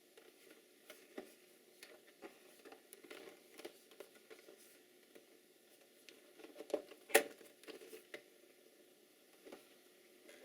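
Unboxing handling noises: scattered light taps, rustles and small clicks of packaging being handled, with one sharper click about seven seconds in.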